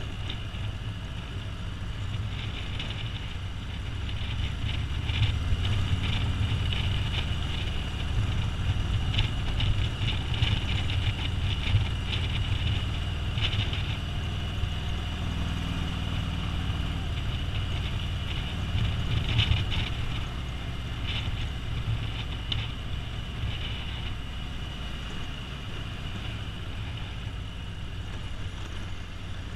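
Motorcycle engine running at road speed, heard from the rider's seat with wind noise over the microphone. There is a steady low rumble that grows a little louder through the middle stretch.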